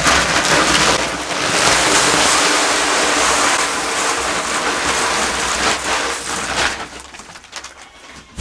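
A bag of feed poured into the hopper of an Osborne automatic pig feeder: a steady rush of feed sliding in, which trails off about six and a half seconds in.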